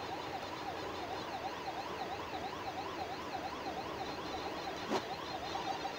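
A warbling electronic siren-like tone that sweeps up and down about three times a second, with a single click about five seconds in.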